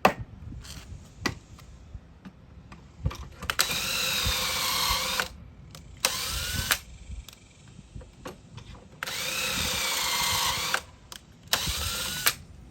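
Power drill boring pocket holes through a pocket-hole jig. It makes four runs, each long run followed by a short one, and the motor pitch wavers as the stepped bit cuts into the wood. Light knocks from handling the jig and board come between the runs.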